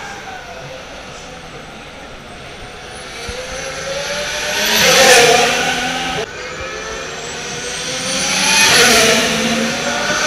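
Two 2014 Formula 1 cars, with 1.6-litre turbocharged V6 hybrid engines, passing one after the other at speed. Each engine note climbs in pitch and loudness as the car comes near, peaks, about halfway and again near the end, then falls away.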